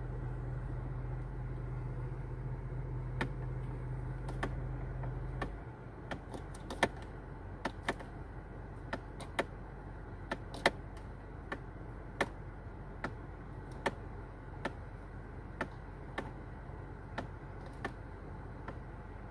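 Steady low hum that cuts off about five and a half seconds in, with a run of sharp clicks that settle to roughly one a second.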